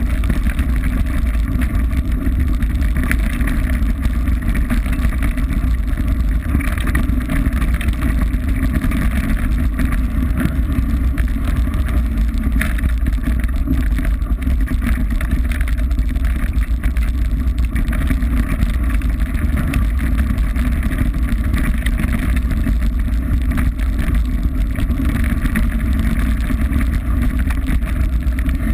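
Steady, loud wind rumble on a bike-mounted camera's microphone, mixed with the tyres of a mountain bike rolling over a loose gravel track.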